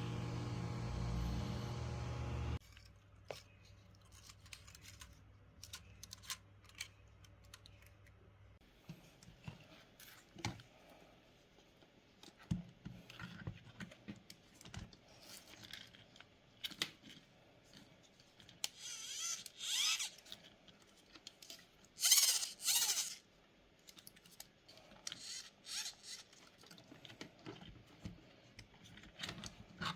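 Small hard parts being handled and set down, with scattered light clicks and knocks and two short louder rasping scrapes near the middle. A steady electrical hum opens the sound and cuts off suddenly a couple of seconds in.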